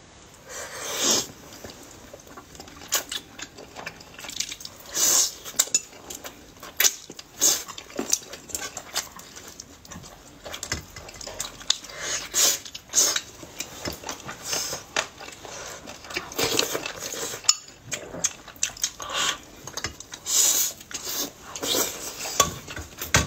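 Close-miked eating: chopsticks and spoons clicking and clinking against bowls and a metal soup pot, irregularly, with chewing sounds in between.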